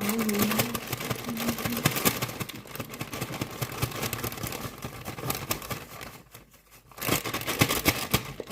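Packet of cookie mix crinkling and rustling as it is handled and emptied into the mixing bowl, with a brief pause about six seconds in before the crinkling starts again.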